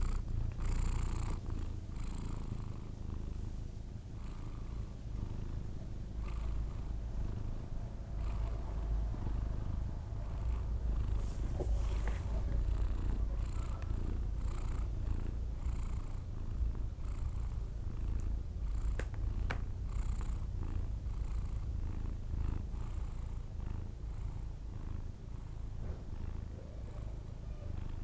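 A sleeping cat breathing with a steady low rumble, the snore-like sound a cat makes in its sleep. Two faint clicks come about two-thirds of the way through.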